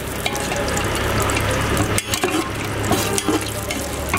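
Cashews and raisins frying in ghee in a large metal pot, sizzling, while a flat metal spatula stirs them with scattered scrapes and knocks against the pot. A low steady hum runs underneath.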